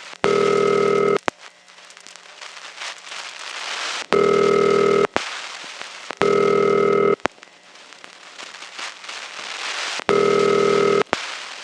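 Telephone ringback on an old step-office line in a double-ring cadence: two buzzy one-second rings a second apart, then about three seconds of pause, repeating. Crackly line noise fills the gaps between the rings.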